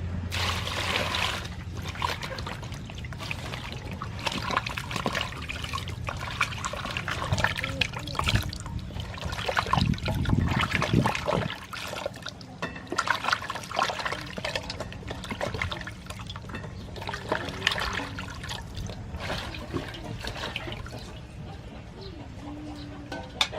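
Water splashing and trickling as bitter gourd and green onions are washed by hand, with irregular small splashes and knocks throughout.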